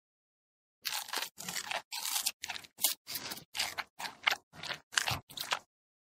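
Red panda chewing food held in its paw: a run of crisp crunches, two or three a second, starting about a second in and stopping shortly before the end.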